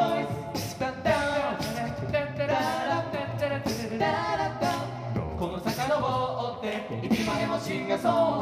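All-male a cappella group singing a song in several-part harmony through a PA, with a lead voice over the backing voices and a beat kept by vocal percussion.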